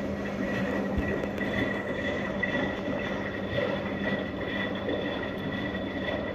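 Empty front-loading washing machine drum spinning, with a steady motor whine and hum.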